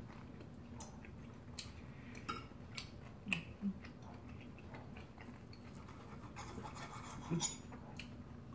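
Steel knife and fork clinking and scraping on a ceramic plate as steak is cut, with scattered quiet clicks and a couple of brief murmurs.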